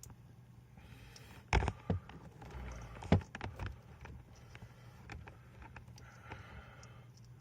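Handling noise from work on a light fixture's wiring: a few sharp knocks and clicks, the loudest about one and a half and three seconds in, with smaller clicks after, over a steady low hum.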